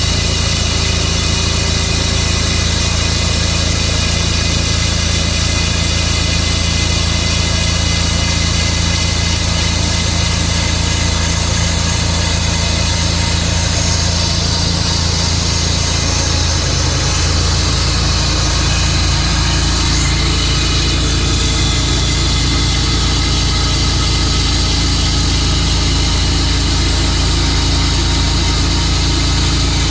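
Tru-Cut sawmill's engine running steadily, with the band blade sawing through a black walnut log.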